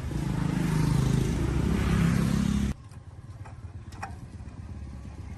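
D15 single-cylinder diesel engine running loudly at speed, then cut off abruptly about three seconds in, leaving a quieter steady running rhythm.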